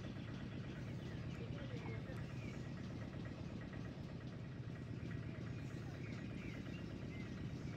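A steady low rumble with small birds chirping now and then over it.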